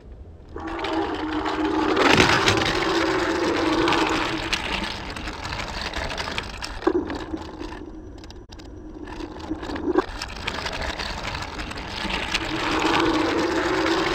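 Toy Thomas the Tank Engine rolling along the plastic track of a Roaring Dino Run play set, with a steady rattling rumble. The rumble eases off around the middle and builds again near the end.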